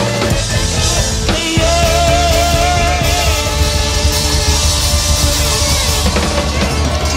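Hip-hop/ska band playing live at full volume: drum kit and heavy bass, with a long held wavering melodic note. The low end cuts out for a moment about a second and a half in, then kicks back in.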